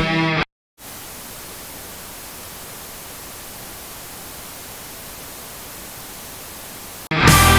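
Rock music cuts off half a second in. After a brief gap comes a steady hiss of TV static noise, and the rock music comes back in near the end.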